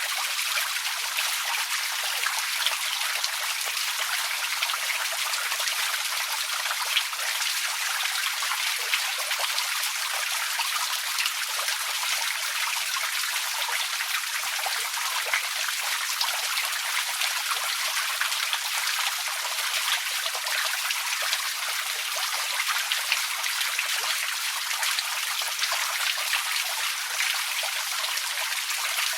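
Outdoor water fountain running: a steady, even rush of falling water, dotted with fine droplet splashes.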